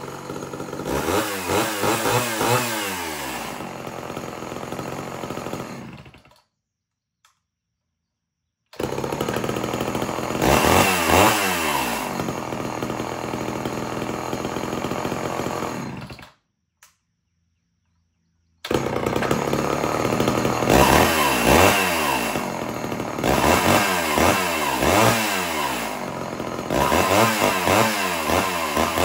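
Homelite Super XL Automatic two-stroke chainsaw running and being revved up and down again and again with the throttle. The sound cuts out completely twice, for two or three seconds each time.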